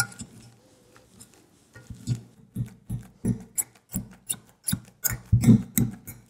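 Metal potato masher pressing boiled potatoes and an egg into purée in a stainless steel saucepan: a quick run of soft thumps with clicks, about three a second, as the masher strikes the pan bottom. The strokes begin about two seconds in and are loudest near the end.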